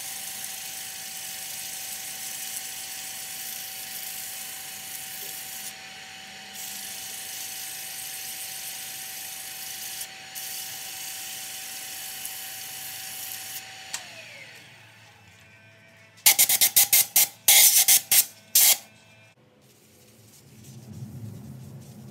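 Sandpaper hissing against a cypress vase turning on a wood lathe, over the lathe motor's steady hum. About two-thirds through, the motor winds down with a falling pitch. A burst of loud crackles follows.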